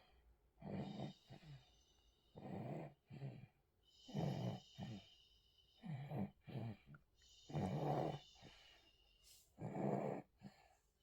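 A sleeping baby snoring in a steady breathing rhythm: about six snores, roughly one every one and a half to two seconds, each followed by a shorter, softer one.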